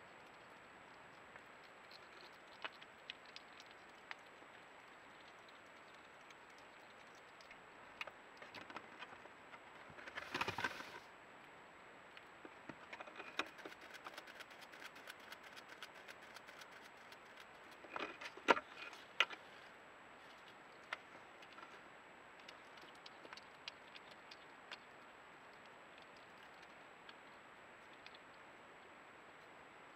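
European hedgehog feeding and moving about on the bare wooden floor of a feeding box: faint clicks, scratches and crunching of dry food, scattered through. There is a louder rustling scuffle about ten seconds in and a cluster of sharp clicks around eighteen seconds.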